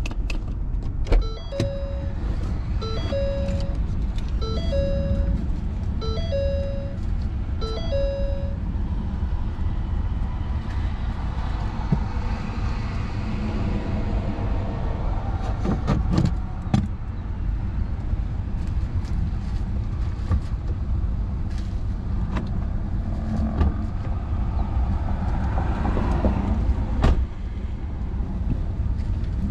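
Steady low rumble of noise inside a vehicle's cabin, with a repeating electronic chime: five short beeps about one and a half seconds apart in the first several seconds.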